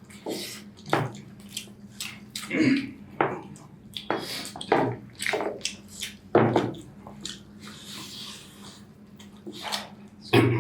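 Close-up wet eating sounds of chicken curry with rice: irregular smacking, squelching and chewing, about a dozen short sounds, over a steady low hum.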